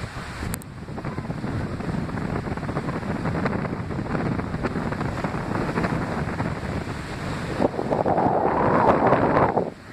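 Strong wind buffeting the microphone, with surf from the sea beneath it. The wind noise grows louder in gusts near the end.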